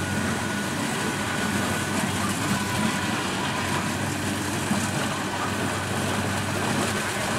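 Kubota DC-70 Plus combine harvester running steadily as it cuts and threshes rice: a continuous diesel engine drone under a steady wash of machine noise.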